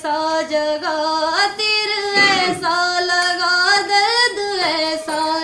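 A young woman singing solo, holding long drawn-out notes joined by ornamented slides and bends in pitch.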